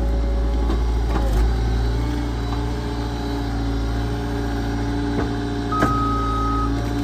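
Engine of a log splitter running steadily, with a couple of sharp knocks as the wood is worked and a short steady whine near the end.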